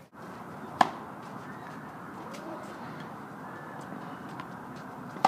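Tennis ball struck by a racket twice, about a second in and again at the very end, each a sharp pop with a short ring from the strings, over a steady background hiss.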